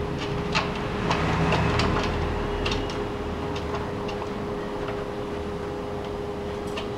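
Plastic pipe fitting being handled and screwed onto an instant water heater's water inlet: scattered light clicks and taps over a steady background hum.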